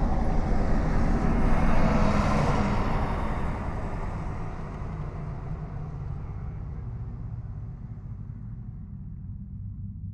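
Street traffic noise: a passing vehicle, loudest about two seconds in, then fading away and growing duller, over a steady low rumble.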